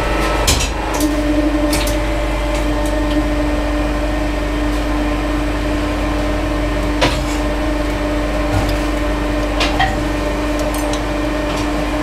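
Hydraulic press's pump motor humming steadily, with a few sharp metal clinks as a flattened padlock is set down on the steel press bed with blacksmith's tongs.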